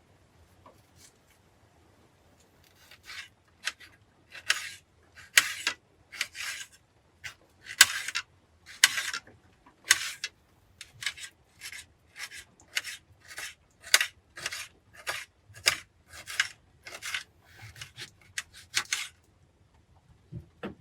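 A series of short, rasping scraping strokes, roughly one to two a second, starting about three seconds in and stopping about a second before the end.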